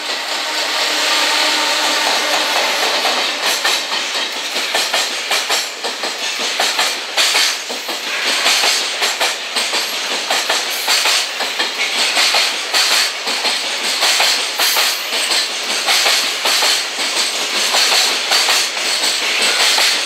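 Freight train passing at speed: an EF210 electric locomotive goes by, followed by a long string of container flatcars (Koki 107 type among them). The wheels clatter steadily over the rail joints, with a steady hum from the locomotive in the first few seconds.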